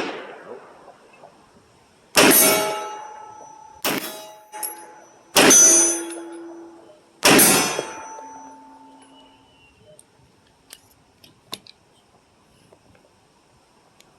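Four gunshots about two seconds apart, the second one weaker, each trailing off in a long echo with brief metallic ringing tones after some of them. A few small clicks follow near the end.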